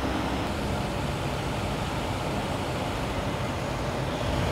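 Steady low vehicle rumble with a hiss over it, no clear revving or gear changes.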